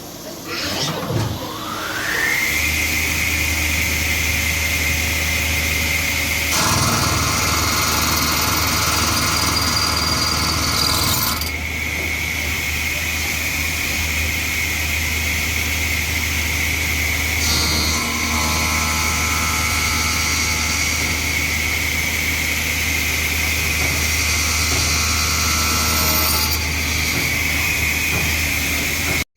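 A 5-axis CNC router spindle spinning up with a rising whine that settles into a steady high whine. Two longer stretches of louder cutting noise come in, about 7 seconds in and again about 18 seconds in.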